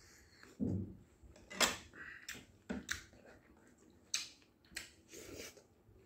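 Close-up eating sounds: mutton soup sipped from a steel ladle, then scattered sharp mouth smacks and clicks of chewing, about half a dozen in a few seconds.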